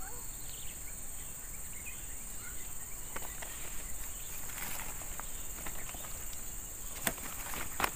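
Steady high-pitched drone of insects in the surrounding grass and trees, with a couple of sharp ticks near the end.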